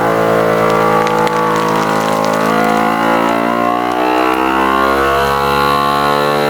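FoodSaver vacuum sealer pump switching on abruptly and running steadily, a loud motor hum whose pitch drifts slowly as it draws air out of the bag.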